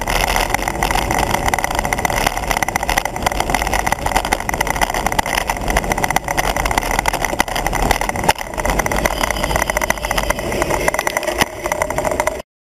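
Steady wind rush and road rumble buffeting a bike-mounted camera's microphone as a road bicycle rides along at speed; the noise cuts off suddenly near the end.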